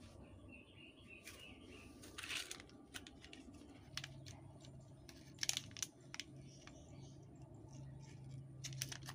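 Small foil sachets crinkling and clicking as a hand handles them, in scattered short crackles.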